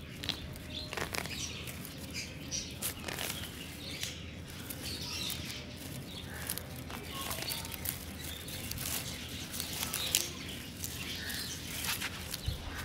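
Rustling and irregular soft crackles as green onion stems and dry leaves are handled and pulled up by hand from wet soil.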